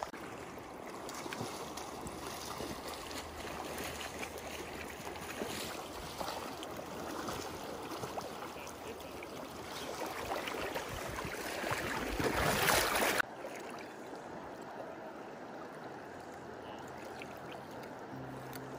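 Rushing creek water flowing around wading anglers, rough and louder for about thirteen seconds, then cutting off suddenly to a quieter, steady flow.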